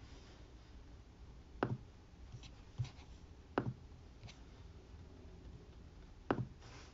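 A handful of sharp, single clicks spaced irregularly a second or more apart, from working a computer, over a faint low room hum.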